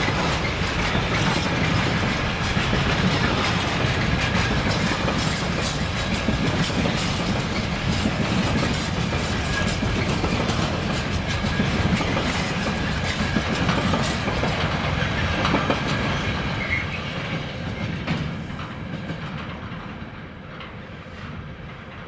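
Train passing: a steady rumble of wheels on rails with rapid clicking over the rail joints, dying away over the last few seconds as it goes by.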